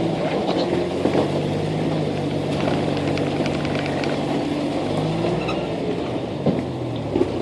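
Jeep Wrangler engine running at low, steady revs while rock crawling, its note shifting a little about five seconds in, with a few short knocks from the rig on the rock.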